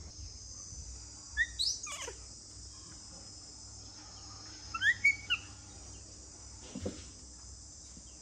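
Steady high-pitched insect chorus, with two short bursts of chirps that glide up and down, about a second and a half and five seconds in.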